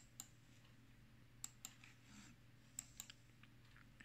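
Three pairs of faint, sharp clicks, irregularly spaced, over near silence.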